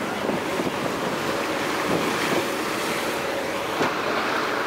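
Wind buffeting the microphone over the rush of a boat's wake churning the water, with the boat's engine running steadily underneath.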